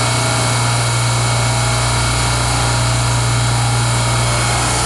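Loud, steady hum and hiss of a running dual-temp refrigeration compressor rack, with a strong constant low drone.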